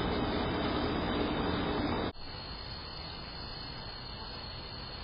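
Steady background hiss from an outdoor security camera's microphone at night, no animal sound standing out. About two seconds in it drops abruptly to a quieter hiss, where one motion-triggered clip cuts to the next.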